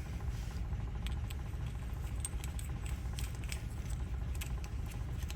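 Light scattered clicks and ticks from a key and door lock cylinder being handled and greased, over a steady low hum of an idling engine.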